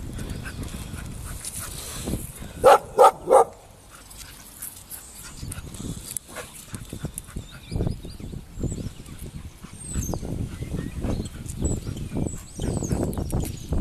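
Bull terriers play-fighting: three loud barks in quick succession about three seconds in, then low, uneven growling and scuffling noise as they tussle.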